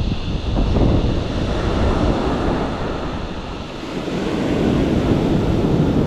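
Surf washing onto a sandy beach, with wind rumbling on the microphone.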